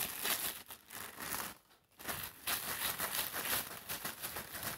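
Plastic sandwich bag worn over a hand, crinkling and rustling as it is rubbed over a paper napkin glued to a pot, with a short pause a little under two seconds in.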